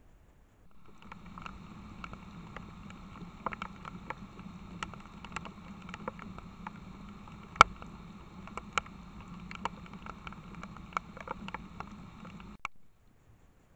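Steady hiss from a trail camera's microphone, starting about a second in, with irregular sharp clicks and snaps as animals move over twigs and leaf litter on the forest floor. The loudest snap comes about halfway through, and the sound cuts off suddenly near the end.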